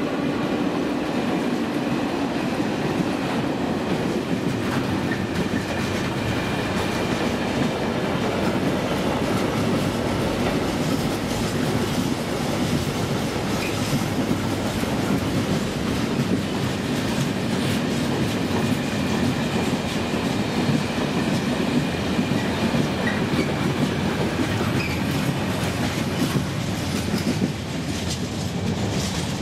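Freight train wagons rolling steadily over a level crossing, their wheels clacking over the rail joints. The noise drops a little near the end.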